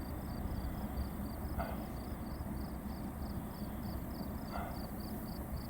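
Field insects chirping in a steady rapid pulse, about four beats a second, over a low steady rumble.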